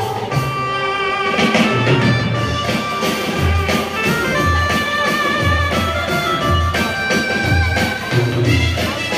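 Instrumental music with held melody notes over a bass beat that comes about once a second.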